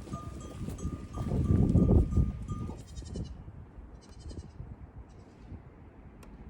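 Goat kids' hooves clattering and thumping as they run and jump about, busiest about a second to two seconds in, then thinning out.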